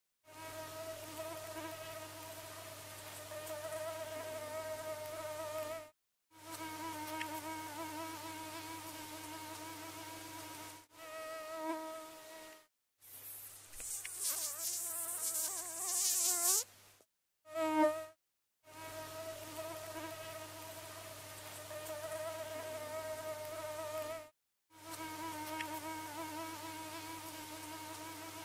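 Mosquito whine, a steady high-pitched hum with overtones, breaking off abruptly several times as clips of the effect are joined. For a few seconds around the middle the whine wavers up and down in pitch over a hiss.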